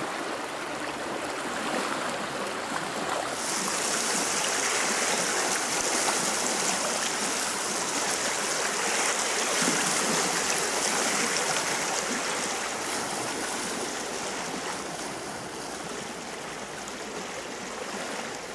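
Flood-swollen river rushing steadily through a concrete channel, fast brown water churning at high flow. The hiss grows brighter from a few seconds in until about two-thirds of the way through.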